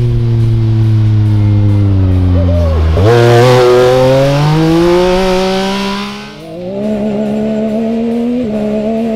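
Yamaha YXZ1000R's three-cylinder engine revving as the side-by-side is driven hard on a dirt trail. The pitch falls for about three seconds, then climbs steeply for about three seconds, drops off, and holds steadier near the end with a brief jump.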